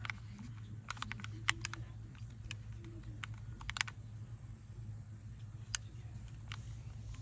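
Light clicks and taps of handling, scattered irregularly, about eight in all, over a low steady hum. No shot is fired.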